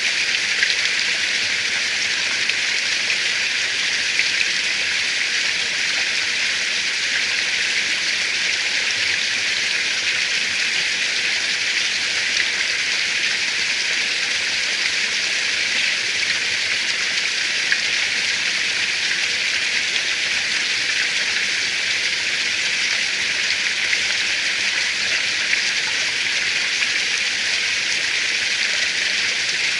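Steady rain: an even, unbroken hiss with faint scattered ticks of drops.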